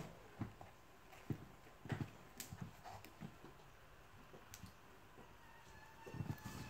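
Faint, scattered clicks and light knocks of a Nautis Global Dive watch's rubber strap and big clasp being handled and fastened on a wrist, with louder handling noise near the end.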